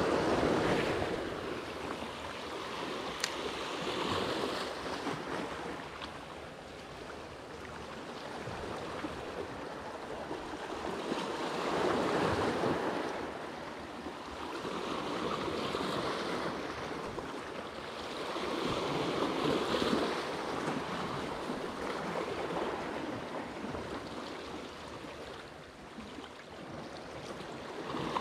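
Small sea waves washing and breaking over seaweed-covered rocks, swelling and ebbing every few seconds.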